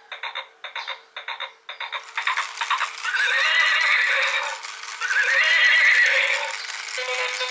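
Battery-operated pink unicorn toy playing a recorded horse whinny twice, each a long wavering call of about two seconds, after a couple of seconds of quick rhythmic beats.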